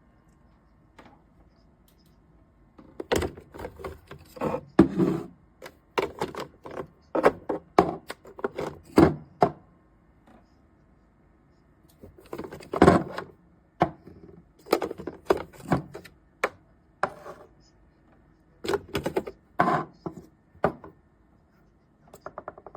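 Irregular knocks, clicks and clatter of small objects being handled, coming in clusters with short pauses.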